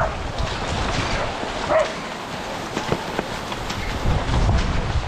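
Classic cross-country skis sliding in the tracks and ski poles clicking into hard snow among a pack of skiers, over wind rumble on the microphone. A brief call rings out about two seconds in.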